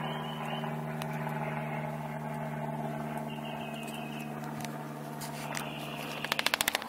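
Steady low mechanical hum made of several steady low tones, like a running electric motor. A few short high chirps come about half a second in and again around three and a half seconds in, and a quick rattle of about eight sharp clicks near the end is the loudest sound.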